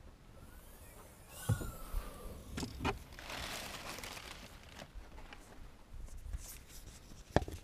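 Opel hatchback tailgate opened and a metal tripod pulled out of the boot: a brief squeak about a second and a half in, knocks and clicks of the tripod legs, rustling of bags and boxes in the boot, and a sharp knock near the end.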